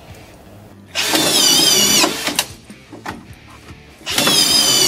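Quik Drive auto-feed screw driving system on a cordless Makita screw gun driving two collated stainless steel trim head screws into timber weatherboards, with no pre-drilling. Each drive is a whining motor burst about a second long, the first about a second in and the second near the end, with clicks of the feed just after the first.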